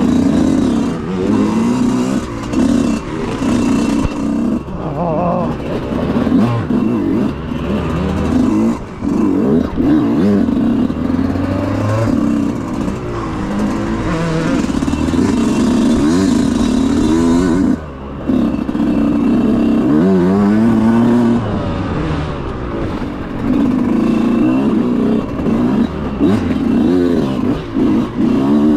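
Dirt bike engine revving up and down over and over as the throttle is worked, with a brief drop of the throttle about eighteen seconds in.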